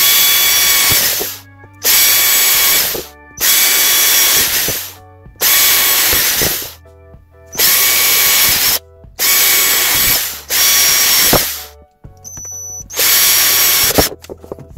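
A power drill running in seven short bursts of about one to two seconds each, with brief pauses between, its motor whine steady within each burst.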